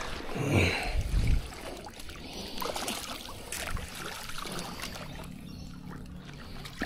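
Shallow harbour water lapping and splashing at the shoreline, with a few dull bumps about a second in and scattered light clicks.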